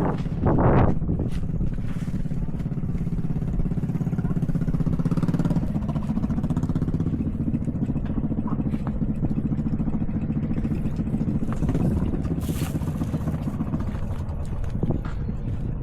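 A small engine running steadily with a low, even pulse, and a brief loud rush of noise within the first second.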